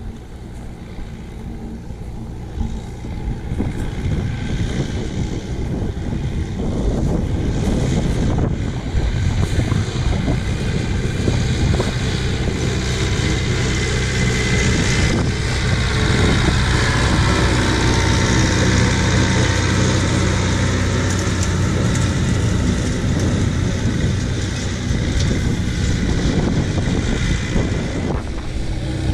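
Leyland 272 tractor's four-cylinder diesel engine running steadily as it pulls a hay rake, growing louder over the first several seconds as it draws near.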